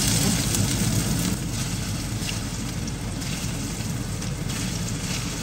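Prawn tempura deep-frying in hot oil: a steady sizzle with scattered crackles, easing slightly after the first second or so.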